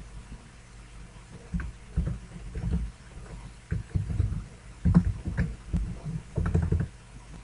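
Computer keyboard being typed on in short irregular bursts: key clicks with dull knocks carried through the desk.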